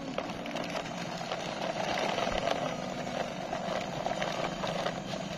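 Plastic toy dump truck rolling over concrete paving stones, its small wheels and loose plastic body making a steady rattle of fine clicks, with a steady low hum underneath.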